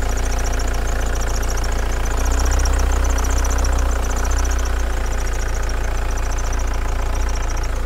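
1987 VW camper's turbodiesel engine idling unevenly, its revs hunting: they rise briefly about two seconds in and settle again. A fast, light ticking runs over the top, which the owner puts down to a small solenoid clicking away.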